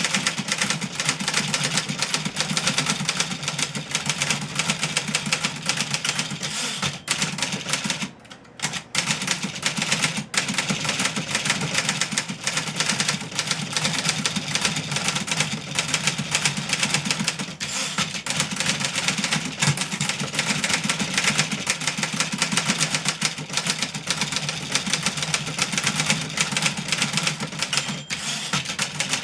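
1963 Remington Model 11 portable typewriter being typed on quickly: a dense, fast run of type-bar strikes, with a short pause about eight seconds in.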